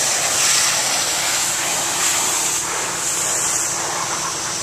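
Pressure washer spraying water onto a roof: a steady, loud hiss of the water jet, with a faint low hum underneath.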